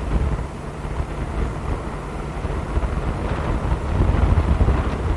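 Car driving, heard from inside the cabin: a steady low rumble of road and wind noise, with wind buffeting the microphone.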